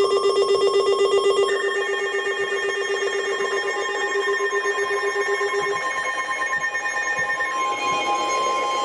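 Severe weather alarm tones from weather alert radios: several electronic alert tones sound at once, led by a fast-pulsing low beep that stops about six seconds in. Near the end a steady single-pitch tone starts, the weather radio warning alarm tone that comes before a warning message.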